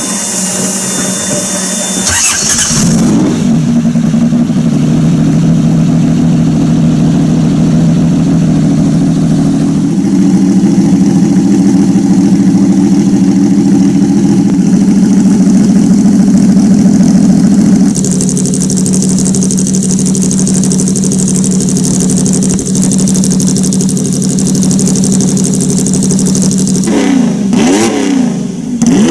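Lancia Stratos's 2.4-litre Ferrari Dino V6 running at a steady engine speed, stepping up about ten seconds in. Near the end the throttle is blipped several times in quick succession, the revs rising and falling.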